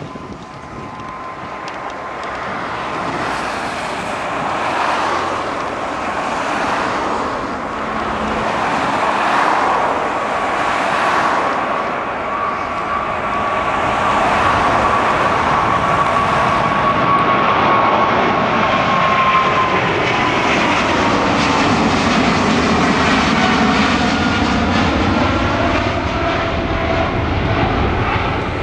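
Boeing 777-200ER's GE90 turbofan engines at takeoff power as the airliner lifts off and climbs past: a steady jet noise that grows louder over the first half, with a fan whine that slowly drops in pitch as the plane goes by.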